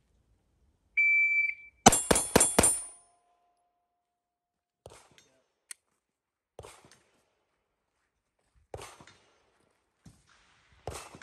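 A shot timer's start beep, then four rapid 9mm shots from a Glock 19X pistol, about a fifth of a second apart, each with a short ring. A few faint knocks follow later.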